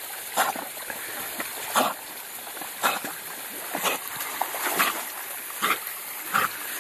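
A dog swimming in a garden pond, splashing with short sharp sounds about once a second. Under it runs the steady rush of a small waterfall.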